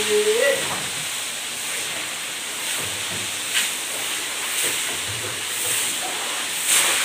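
Steady sizzling hiss of tofu deep-frying in a large wok of hot oil, with a couple of short clicks.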